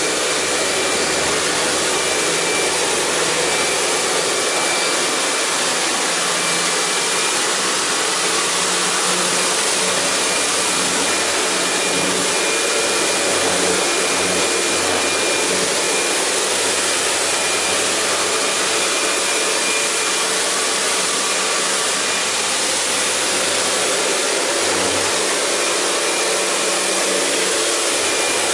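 Kärcher K2 Basic electric pressure washer running steadily under load: a loud, even hum from its motor and pump under the hiss of the water jet from its rotary-nozzle lance striking car bodywork.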